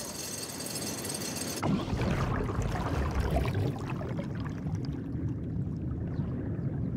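A steady hiss, then from about one and a half seconds in a louder, churning underwater sound of bubbling and low rumble, as when a diver works a subsea cable.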